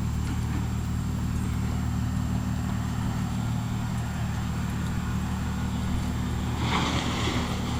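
Bryant Evolution two-stage heat pump's outdoor unit running in cooling mode: a steady low hum from the compressor and condenser fan. A brief rustling hiss comes near the end.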